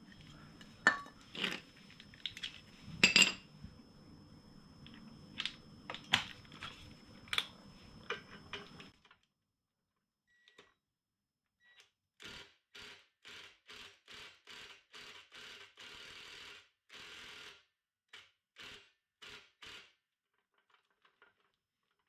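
Metal tools clicking and knocking against a steel floor jack while a rusted pad bolt is worked on, over a low hum. About nine seconds in the sound cuts out, then comes a run of short, evenly spaced rasping bursts, about two a second.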